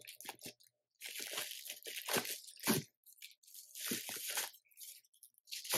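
Thin plastic wrapping crinkling and rustling in irregular bursts as hands pull a laptop charger and its cord out of the bag.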